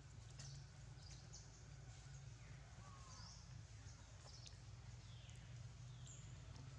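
Near silence: faint outdoor background with a steady low hum and a few faint, brief high chirps and short whistles.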